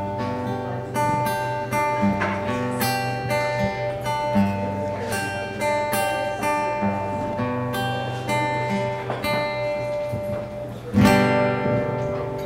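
Acoustic guitar music: single plucked notes ringing over a sustained low note, with a loud strummed chord about eleven seconds in.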